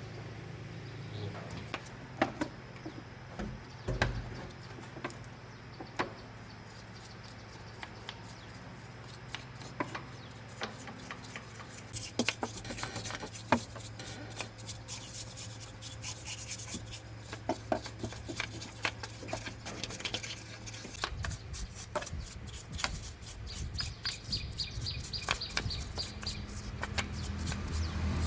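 Scattered light clicks, knocks and rubbing of hand work, over a low steady hum.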